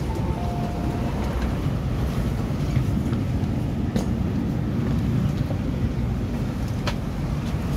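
Steady low rumble inside an MTR Island Line Q-Train at the doorway, with two sharp clicks about 4 and 7 seconds in.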